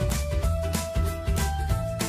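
Background music: held melody notes over a bass line with a steady beat.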